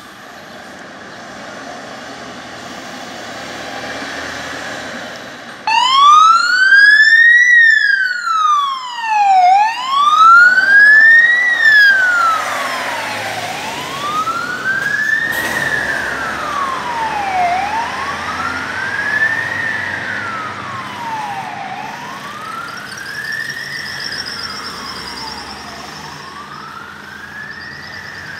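Tatra 815 CAS-32 fire engine's siren, coming on suddenly about six seconds in and wailing slowly up and down, one rise and fall about every four seconds. It is loudest as the truck passes and then fades as the truck drives away. Before the siren, engine and road noise builds.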